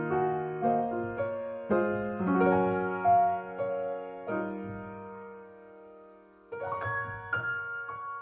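Soft background piano music: slow chords that ring and fade away, dying down to a near pause about six seconds in before new chords are struck.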